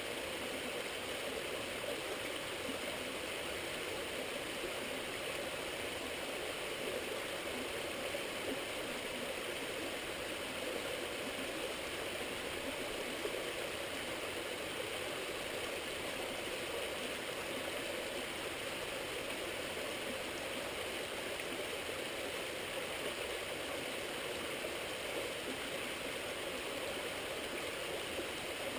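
Stream running steadily: an even rush of flowing water that does not change.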